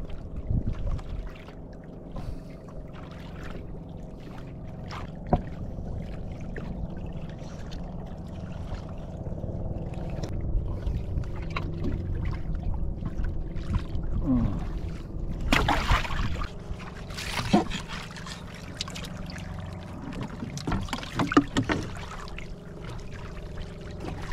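Water lapping against the hull of a small outrigger boat under a steady low rumble, with a few sharp knocks and louder splashing about two thirds of the way through.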